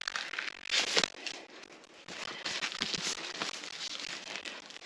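Packaging rustling and crinkling in irregular bursts as manuals and papers are handled and lifted out of a cardboard box, loudest about a second in.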